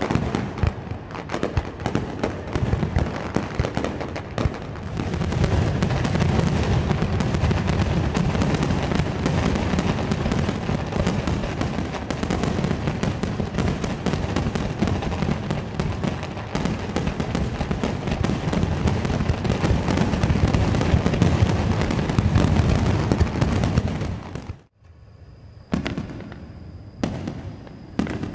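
Fireworks barrage: a continuous rapid stream of aerial shell bursts and crackle with deep booms. It cuts off abruptly near the end, leaving a couple of separate shell bursts.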